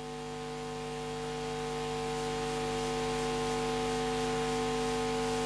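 Steady electrical hum made of several fixed tones over a background hiss, slowly growing louder: the noise floor of the microphone and sound system during a pause in speech.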